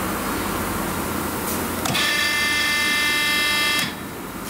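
Electric motor of a U-298 electrohydraulic truck tire changer running with a steady high whine for about two seconds, then cutting off abruptly as the red start/stop button on the console is pressed.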